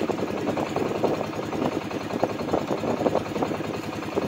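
A small wooden fishing boat's engine running steadily, with a rapid, uneven beat.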